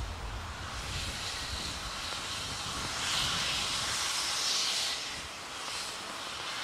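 A steady hiss that swells about halfway through and eases off near the end, over a low rumble that dies away in the first second.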